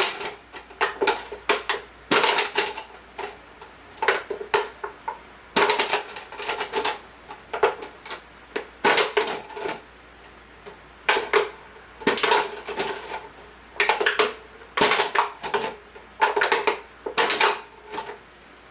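Plastic bottle clicking and crackling as it is handled and holes are melted through it with a hot soldering iron, in short clusters of sharp clicks every second or so.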